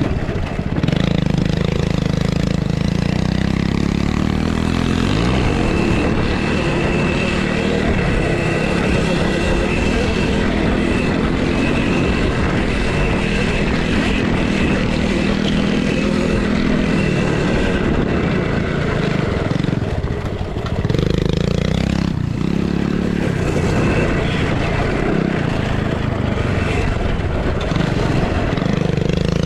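Minibikes racing on a dirt track: motors revving up and down over heavy rumbling noise, with a faint steady high whine through much of it.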